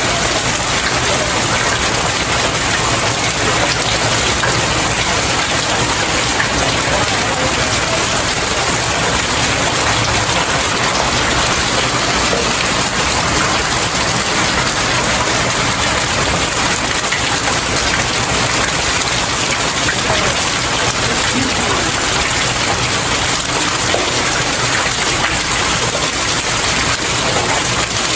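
Steady rain falling on stairs: a dense, even hiss of drops that holds at the same level throughout.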